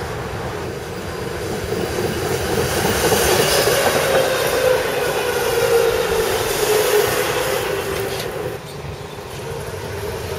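A tram passing close by on street rails: running noise of wheels on track that swells as it comes alongside, with a whine that dips slightly in pitch, then falls off about eight and a half seconds in as the tram goes past.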